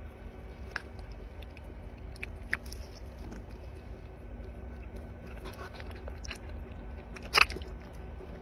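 A red panda biting and chewing fruit held out to it by hand: soft, scattered wet clicks of chewing, with one sharper, louder crunch about seven seconds in.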